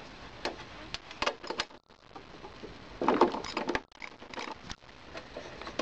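Spark plug being unscrewed from a small lawn mower engine's cylinder head with a hand wrench: irregular metal clicks, scrapes and rattles of the tool and hands on the engine, busiest about three seconds in.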